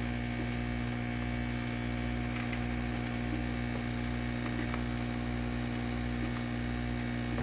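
Electric machine running with a steady, unchanging hum made of several low tones and an even noise over them.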